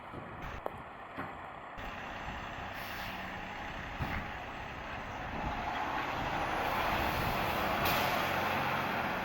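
Fire truck engine running, its sound swelling from about six seconds in as the heavy apparatus draws nearer, with a short hiss about eight seconds in.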